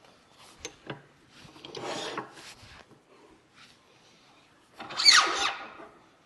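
Wood being cut with a turning tool on the lathe in short passes. A couple of clicks come first, then a scraping pass about two seconds in, and a louder cut about five seconds in with a falling squeal in it.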